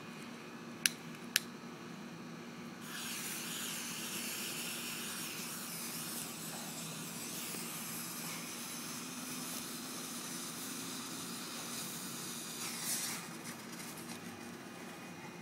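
Two sharp clicks about a second in, then the fuse of a four-break firework mortar shell hissing steadily as it burns down, swelling briefly near the end as sparks spray from the tube.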